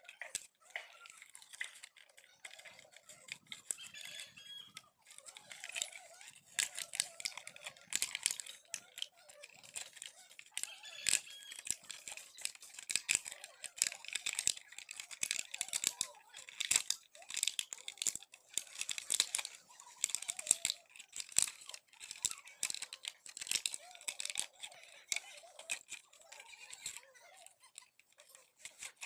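Crackling, tearing rasps of adhesive tape being pulled off its roll and wound round a bamboo pole, with the plastic of a cut bottle crinkling; irregular crackles throughout.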